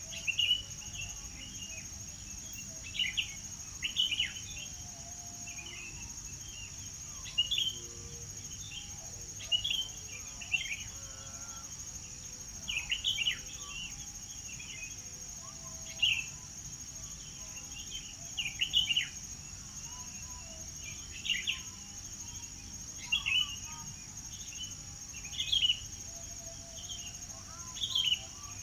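Songbirds chirping in short, sharp calls and quick downward notes, one every second or two, over a steady high-pitched insect drone.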